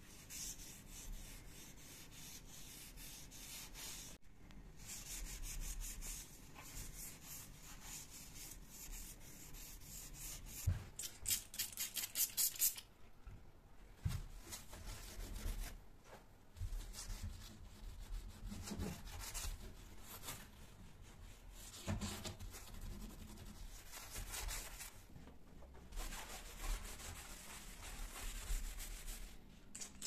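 A cloth rubbed back and forth over a painted door, wiping it in strokes, with a short spell of quicker scrubbing a little before the middle.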